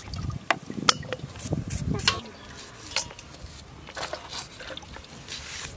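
Metal pots, bowls and utensils clattering: a series of sharp clinks and knocks, the loudest about a second in and again about two seconds in.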